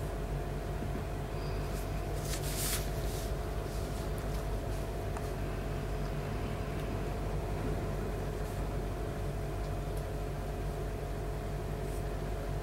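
A steady low hum with a few constant tones and an even hiss underneath, with one short soft swish about two and a half seconds in.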